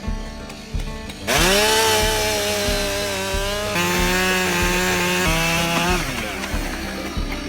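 Husqvarna 572XP two-stroke chainsaw revved up sharply about a second in, then held at high revs for about five seconds before dropping away, over background music with a steady beat.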